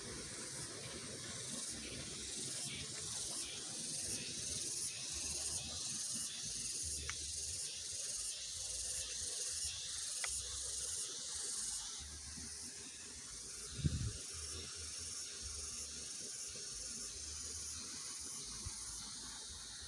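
Steady high-pitched hiss of outdoor ambience, faintly pulsing for much of its length, with one low thump about 14 seconds in.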